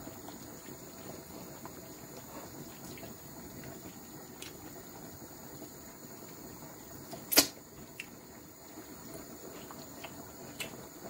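Pot of black soup simmering, a soft steady bubbling with faint pops. One sharp click comes about seven seconds in, and a lighter one near the end.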